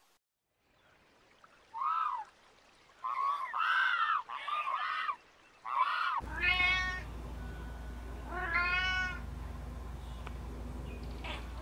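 Domestic cat meowing: a few short calls in the first half, then two longer, drawn-out meows over a steady low hum.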